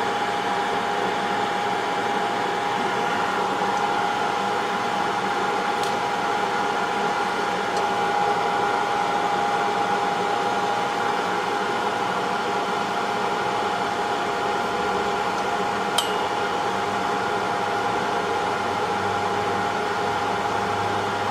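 Hot-air rework station blowing steadily, with a steady whine over the rush of air, heating the solder to desolder an HDMI port from the Xbox One S board. A single light click about sixteen seconds in.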